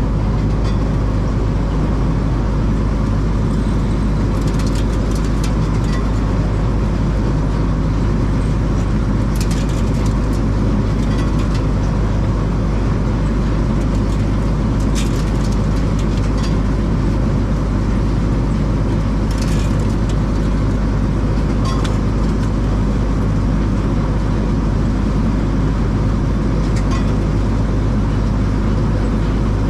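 Case IH 2388 combine harvester running steadily with a loud, even low drone. A few brief clicks sound over it.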